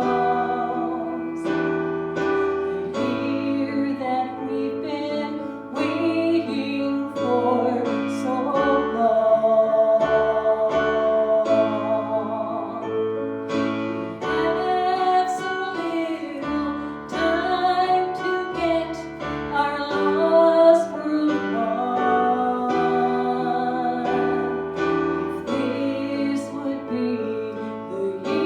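Music: a woman singing a song with keyboard accompaniment.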